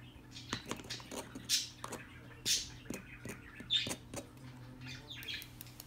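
Light taps and clicks from small soap-making tools and a jar of mica being handled on a table, with several short hisses about a second apart.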